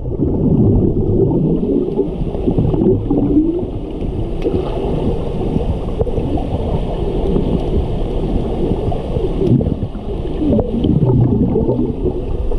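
Muffled underwater sound of a swimming pool picked up by a camera held below the surface: a steady low rumble with gurgling bubbles and wavering low sounds, almost nothing high-pitched.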